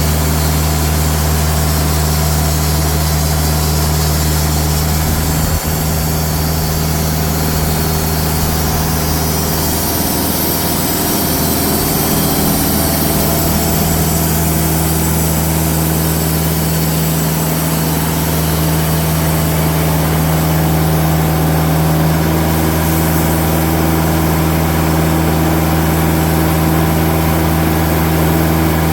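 Diesel engine of a TimberKing band sawmill running steadily while the band blade saws through a log. There is a brief knock about five and a half seconds in.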